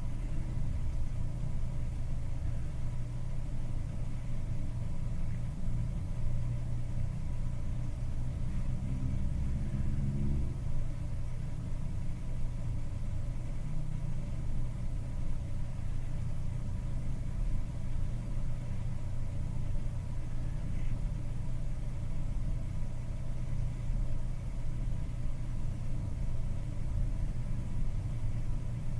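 Steady low hum from a running bench machine at a micro-soldering station, with a brief change in tone around nine to ten seconds in.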